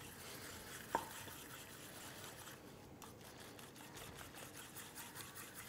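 Faint kitchen noise: a single light knock about a second in over a low, steady hiss.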